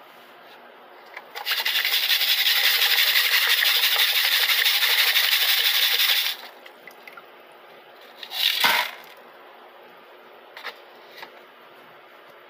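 Wet gravel rattling and water sloshing as a plastic classifier sieve is shaken in a bucket of water, sifting gold-bearing concentrates during cleanup. The loud rattle lasts about five seconds and stops suddenly; a second, shorter rattle comes about two seconds later, then a couple of faint clicks.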